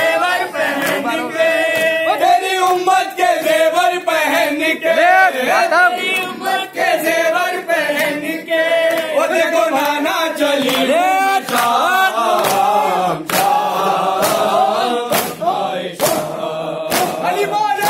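A group of men chanting a noha, a Shia lament, in unison, with sharp chest-beating slaps (matam) repeating at a fairly regular beat under the singing.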